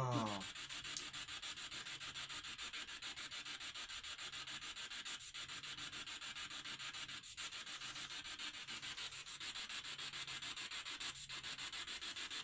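Steady static-like hiss with a fast, even flutter, and a faint low hum beneath it.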